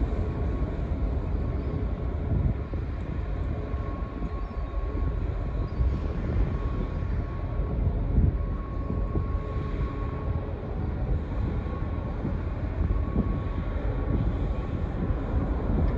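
Low steady rumble of a large passenger ro-ro ferry's machinery as it approaches under power, with a faint high whine that comes and goes and wind buffeting the microphone.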